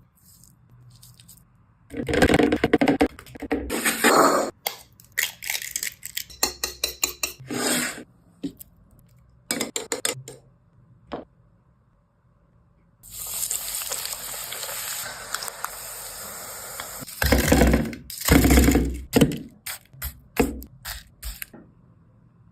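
Kitchen food-preparation sounds: utensils and dishes clattering and scraping in irregular clusters, with a steady hiss lasting a few seconds in the middle.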